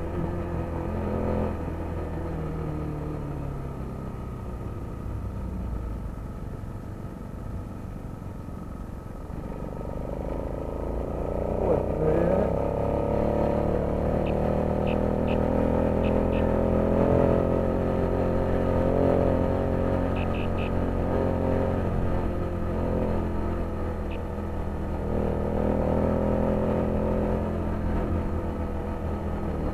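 City street traffic heard from a moving bicycle: cars and motorcycles running and passing. One vehicle rises in pitch as it accelerates about twelve seconds in, and a few short high beeps come in the middle.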